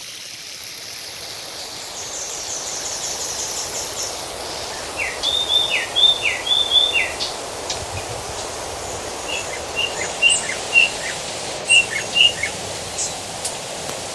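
Wild birds singing over a steady rushing noise: a fast high trill, then four repeated down-slurred whistled notes, then a run of short chirps.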